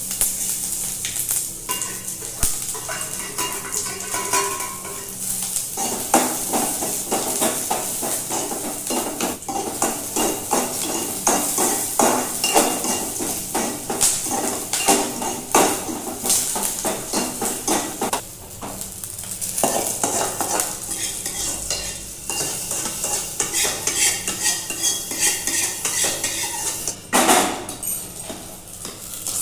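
Green chillies and seeds sizzling in hot oil in an aluminium kadai, with a metal spoon scraping and clinking against the pan as they are stirred. Near the end the spoon clinks in a small steel pot.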